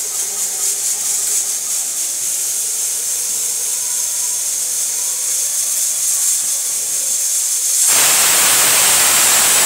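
Pressure cooker on a gas flame hissing steadily as steam escapes around its weighted whistle valve. About eight seconds in, the weight lifts and steam blasts out much louder: the cooker's first whistle, the sign it has reached full pressure.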